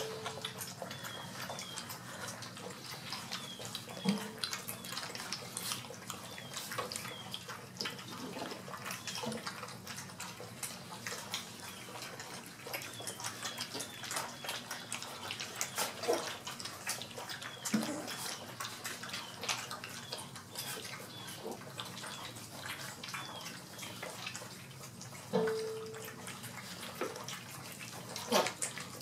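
A litter of 4-week-old golden retriever puppies lapping milky gruel from stainless steel feeding pans: many small tongues at once, making a continuous, irregular wet clicking and slurping, with a few louder knocks.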